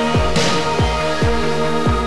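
Electronic instrumental music: sustained synthesizer chords over deep kick drums that drop sharply in pitch, several times, with a burst of bright noise about half a second in.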